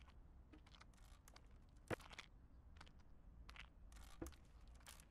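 Near silence broken by faint scattered clicks and brief rustling noises, two slightly sharper clicks about two seconds and four seconds in.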